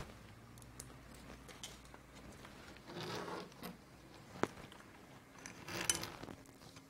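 Faint handling sounds of a quadcopter frame and brushless motor being fitted together by hand: soft scraping rustles about three seconds in and again near six seconds, with a single sharp click about four and a half seconds in.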